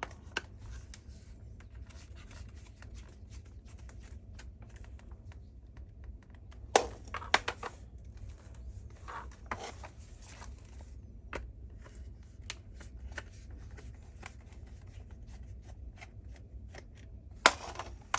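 Hand-tool work on a plastic vacuum roller head: small clicks and scrapes as screws are undone and the plastic housing is handled, with a few sharper knocks about a third of the way in and again near the end, over a steady low hum.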